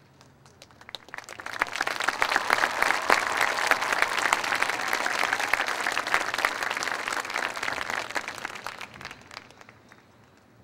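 A crowd applauding: the clapping starts about a second in, swells quickly, holds, and dies away near the end.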